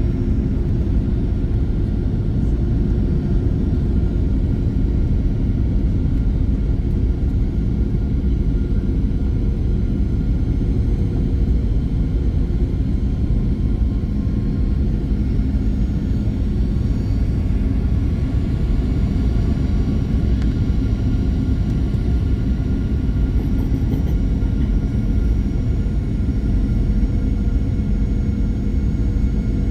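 Cabin noise inside a Boeing 737-800 in flight: a steady, loud low rumble of airflow and its CFM56-7B jet engines, with faint steady hums above it.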